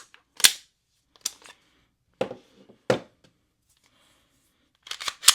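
Canik TTI pistol being handled: a run of about six sharp mechanical clicks and clacks at irregular intervals, the loudest about half a second in and near the end.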